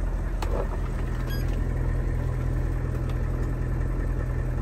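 Hummer H1's 6.5-litre turbo-diesel V8 idling steadily, with a couple of faint clicks.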